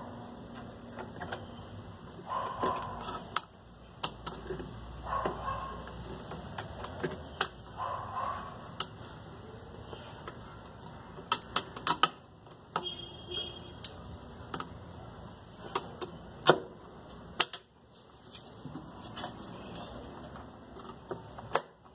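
Parts of a Brastemp washing machine's brake mechanism being fitted by hand: scattered clicks and knocks of plastic and metal parts on the steel mounting plate, with a quick run of clicks about eleven seconds in.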